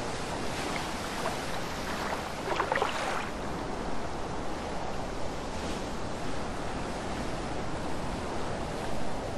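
Steady rushing wash of wind and open water with waves, with a short burst of brighter crackling sounds about two and a half seconds in.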